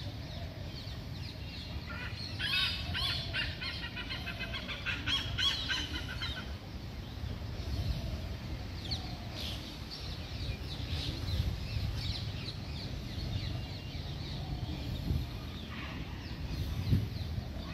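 Many birds chirping and calling, with a dense burst of chattering calls between about two and six seconds in, over a steady low rumble.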